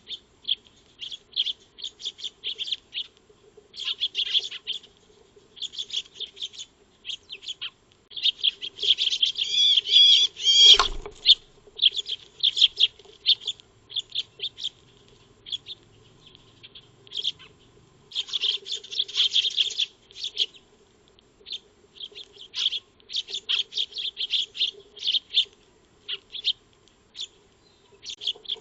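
Eurasian tree sparrows chirping over and over in short, rapid notes, thickest in a busy run about eight to eleven seconds in. A single thump comes about eleven seconds in.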